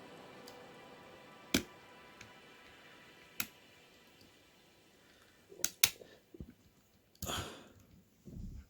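Sharp metal clicks of lock-picking tools working the levers of a Union 5-lever mortice lock, a few seconds apart with a quick pair after the middle, then a brief rustle and soft knocks near the end.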